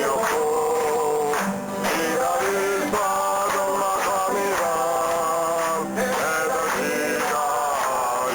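A 1970s-style Korean folk song sung by a man, with acoustic guitar accompaniment and long held notes.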